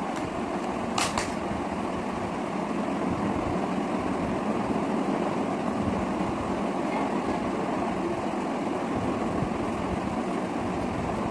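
Steady whooshing room noise, with one short sharp click about a second in.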